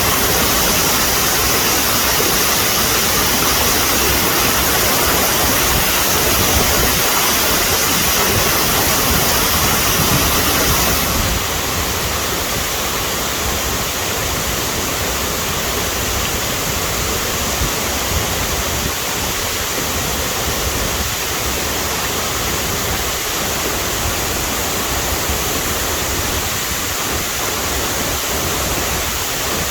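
Steady rushing of falling water from a waterfall, an even hiss with no breaks. It steps down a little in level and loses some of its high hiss about eleven seconds in.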